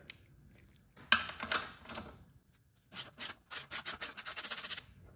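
Socket wrench on an e-bike's 18 mm rear axle nut. About a second in there is a sharp metal click and scraping as the deep socket is fitted. Then a rapid run of ratchet clicks for about two seconds as the wrench is worked on the nut to loosen it.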